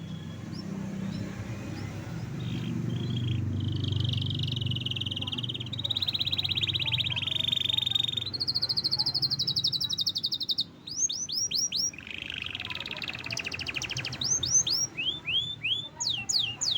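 Domestic canary singing a long, varied song of fast rolling trills, climbing to a higher, faster trill midway and ending in a run of quick downward-sweeping whistled notes. A low hum runs underneath.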